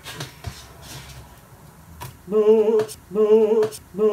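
A man humming three short, evenly spaced notes, after a couple of seconds of faint kitchen clicks and knocks.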